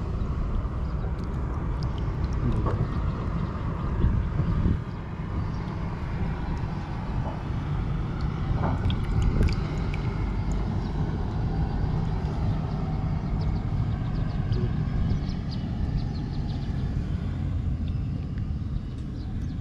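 A steady low rumble, with a few faint small splashes and drips of water as cupped hands scoop in a shallow puddle.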